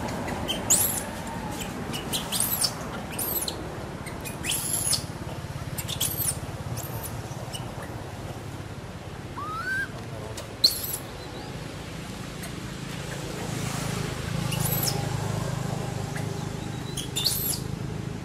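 About a dozen short, very high-pitched squeaks from a small animal, coming singly and in pairs at irregular intervals over a steady low rumble.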